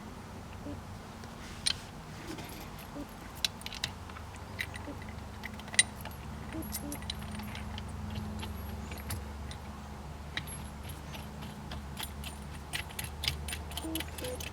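Scattered small metallic clicks and clinks of bolts and lock washers being handled and started by hand into a shifter mount, over a low steady hum.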